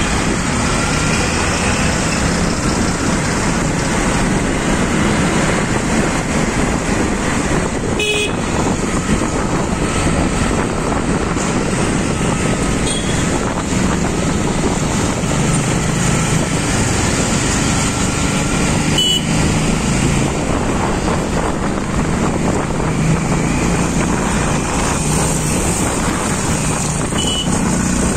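Motorbike riding through busy city traffic: steady engine and road noise from the bike and the vehicles around it, with a vehicle horn sounding now and then.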